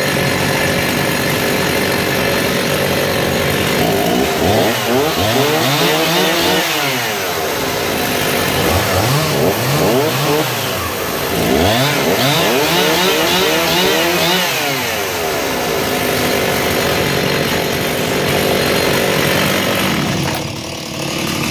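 Two-stroke chainsaw engine running, revved up and back down several times over a steady idle, then cut off just before the end.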